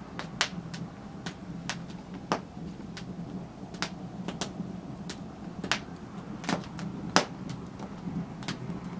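Wood fire crackling: irregular sharp pops and snaps, a few louder than the rest, over a low steady hum.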